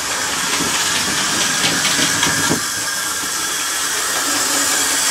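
Airfix 4F Fowler OO-gauge model locomotive running along the track under power: a steady whirring hiss that slowly grows louder, with a few light clicks about two seconds in as the wheels cross rail joints or pointwork. It runs through cleanly.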